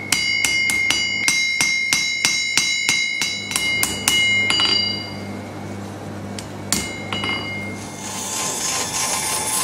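Forging hammer striking a red-hot steel knife blade on an anvil in quick, even blows, about four a second, each with a bright metallic ring, while the smith works the blade's edge. The blows stop after about four and a half seconds, one more strike follows near seven seconds, and a steady hiss sets in near the end.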